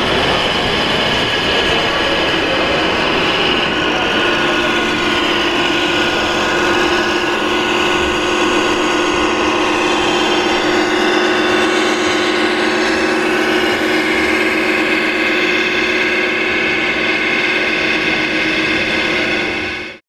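Steady din of radio-controlled model trucks' engine sound modules over crowd chatter, with several held tones running throughout; it fades out at the very end.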